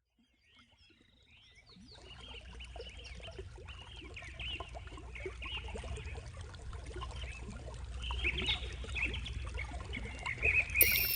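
Birds chirping over running, trickling water, with a steady low rumble beneath, fading in from silence and growing louder. Near the end a brighter hiss with repeated falling tones joins in.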